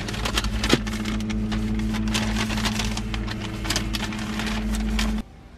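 Paper bag crinkling and rustling as it is handled, in many sharp crackles over a steady low hum and rumble. It all cuts off suddenly about five seconds in.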